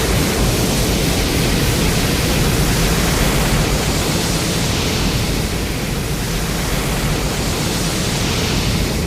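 Sound effect: a loud, steady rushing noise spread evenly from deep to high pitches, with no pitched roar or separate hits in it.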